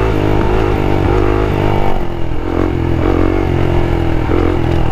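Suzuki DR-Z400 supermoto's single-cylinder four-stroke engine running as the bike rides along. Its pitch dips and breaks briefly about two seconds in, then holds steady.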